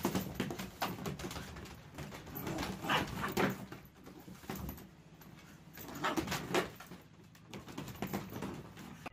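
A corgi puppy scrabbling about in an empty hard plastic kiddie pool, claws scratching and paws thumping on the plastic as it chases a ball, in irregular bursts that are strongest about three seconds in and again after six.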